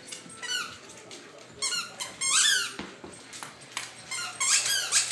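Dog chewing a squeaky toy. It gives a run of high squeaks that each fall in pitch, coming in irregular bursts, with the longest and loudest about two and a half seconds in.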